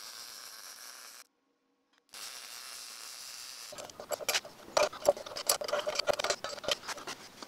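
Wire-feed welding: a steady crackling hiss, broken by a short gap. About halfway through it gives way to a quick run of sharp metal clicks and knocks as a steel tool rest is slid into a bench grinder's base and set.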